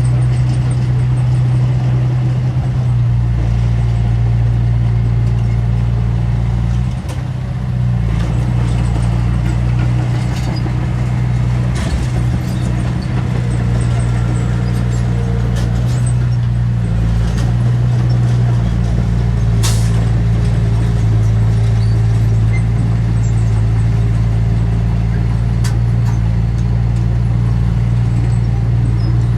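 Heavy diesel engine of earthmoving machinery running steadily, with a brief dip about seven seconds in and a few sharp knocks.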